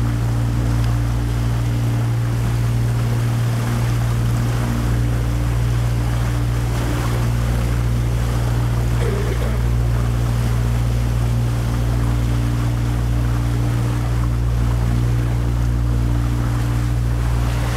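Canal tour boat's engine running steadily, a low drone that holds the same pitch throughout.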